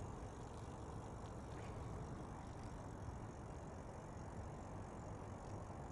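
Faint steady low rumble of a vehicle driving, with no distinct events.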